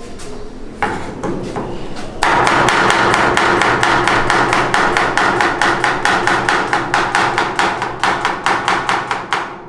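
Kitchen knife chopping a red onion on a wooden cutting board, the blade knocking the board with each cut. A few slower cuts come about a second in, then steady fast chopping at about five strokes a second from about two seconds in, stopping just before the end.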